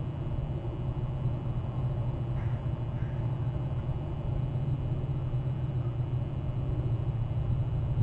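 A steady low rumble, with two faint short chirps about two and a half and three seconds in.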